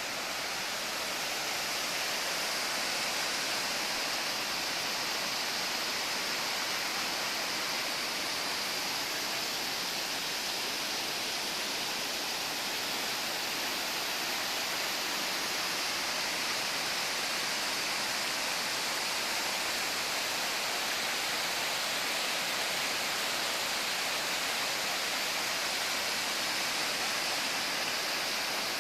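Steady rush of flowing water, a waterfall or fast river running over rocks, hissy and unbroken.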